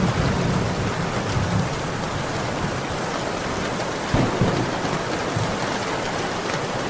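Heavy rain pouring steadily, an even hiss of drops across the whole range, with low rumbles in the first second or so and a sudden low thump about four seconds in.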